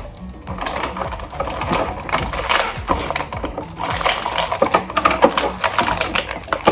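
Plastic toy packaging crinkling and crackling as it is handled and pulled open: a dense, irregular run of small clicks and crackles.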